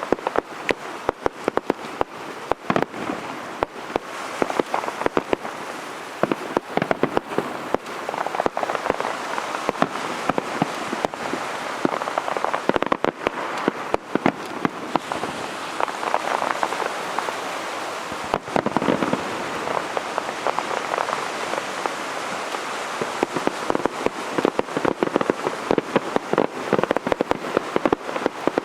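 Aerial fireworks crackling: a dense, continuous stream of rapid pops and cracks from crackle stars, with louder reports mixed in.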